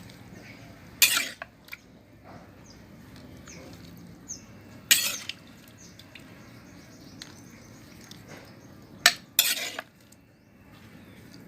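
A spoon clinking and scraping against a bowl or plate as food is scooped out to serve: four sharp clatters, one about a second in, one midway, and two close together near the end.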